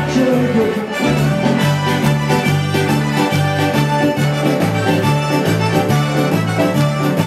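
Instrumental dance music with an accordion melody over a steady two-note alternating bass.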